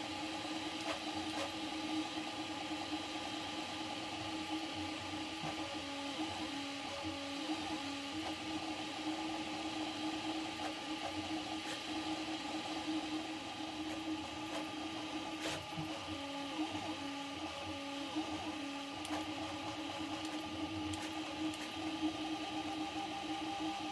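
Prusa MK4 3D printer printing at 90 mm/s: its stepper motors sing in steady tones, and twice, for a few seconds, the pitch flicks rapidly back and forth as the print head changes direction over and over. Under it runs an even whirring hiss.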